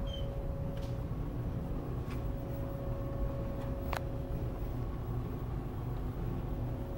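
Steady low rumble and electrical hum of the building's background noise, with a few faint clicks and one sharper click about four seconds in.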